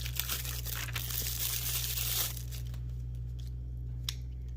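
Packaging crinkling and tearing for about two seconds as a small knife is unwrapped, then a few light clicks as it is handled.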